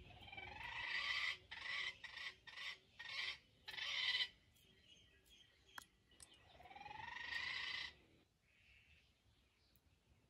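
Animal calls: a call that swells for about a second and a half, then a run of short pulses, and a second swelling call a few seconds later.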